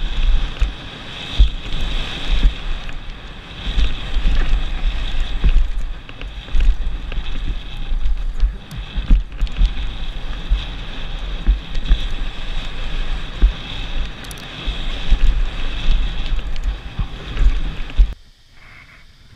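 Wind buffeting a helmet-mounted camera's microphone on a fast mountain bike descent, with irregular knocks and rattles of the bike over the rough dirt trail. The noise drops suddenly to a much quieter level near the end.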